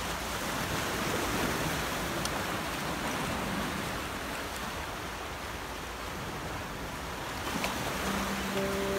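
Sea surf washing against a rocky shore: a steady, even rush of water. Soft background music comes back in near the end.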